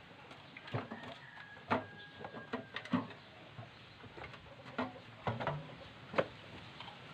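Irregular light knocks and clicks of hand work on a scooter, a dozen or so spread over several seconds.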